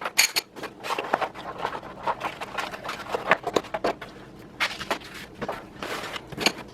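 Pieces of a PC case kit and their packaging being shifted around on a table: a busy run of scrapes, light knocks and clicks.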